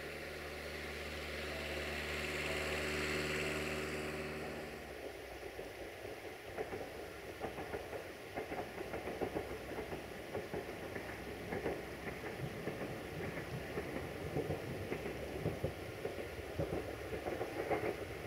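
Siemens Desiro diesel multiple unit's engine running: a steady droning hum that stops abruptly about five seconds in, followed by a rougher, crackly engine sound from the railcar.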